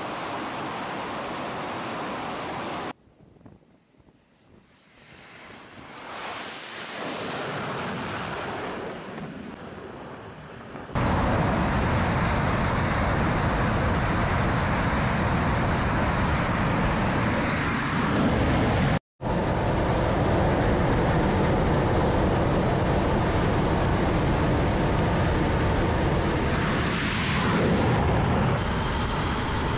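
F/A-18 Super Hornet jet engines at full power on a carrier catapult, a loud, steady roar that starts suddenly about a third of the way in. Near the end the jet is launched by the steam catapult and the roar eases slightly as it goes away down the deck.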